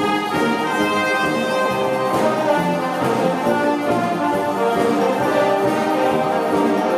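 A live wind band playing: saxophones, trumpets and a sousaphone with an electric bass, sustained brass chords to a steady beat.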